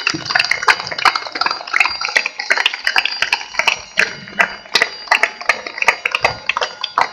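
Crowd applauding: many sharp, irregular hand claps close by, running continuously.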